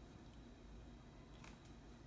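Near silence: room tone, with two faint short clicks about one and a half seconds in as a hand handles a log of cookie dough.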